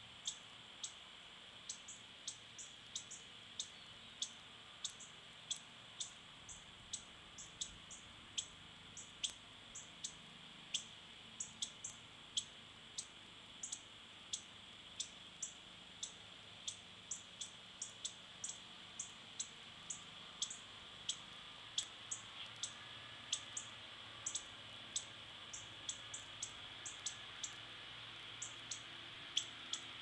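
Northern cardinals giving sharp chip calls non-stop, about two a second: the alarm they raise at a cat in their yard.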